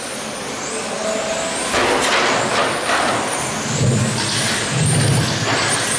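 Radio-controlled touring cars racing on an indoor carpet track, their electric motors whining in overlapping rising and falling pitches as they pass. The sound grows louder about two seconds in.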